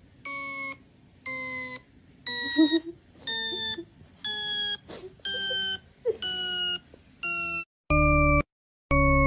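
A repeating electronic beep played from a phone's speaker, about one half-second tone each second, drifting slowly lower in pitch. It is a sound clip meant to get a dog's attention. Near the end, louder and fuller beeps take over at the same pace.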